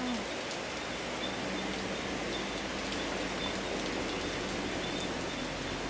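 Heavy rain falling in a storm, a dense, even hiss that holds steady throughout.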